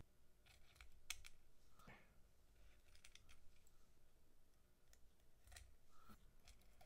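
Near silence with faint, scattered light clicks and taps: hands handling a small printed circuit board while fitting LEDs into it.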